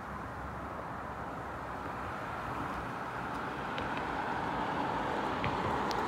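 Distant road traffic: a steady hiss of passing vehicles that slowly swells in loudness, with a few faint clicks near the end.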